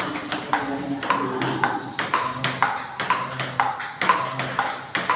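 Table tennis balls clicking in quick succession, about three a second, as they are hit off paddles and bounce on the table in a rapid multiball feeding drill.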